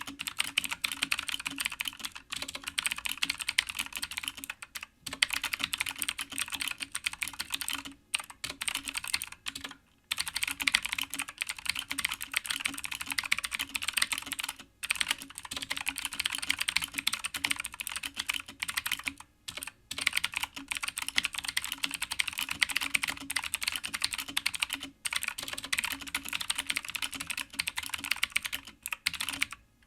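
Fast, continuous typing on a stock Redragon K552 mechanical keyboard with Outemu Blue clicky switches, a dense stream of sharp clicks with a few short pauses. These are unmodified switches, which the owner finds full of spring ping.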